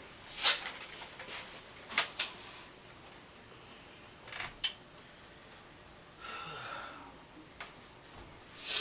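Scattered knocks and clicks of small objects being handled and set down in a small room, with a short scratchy rustle about six and a half seconds in.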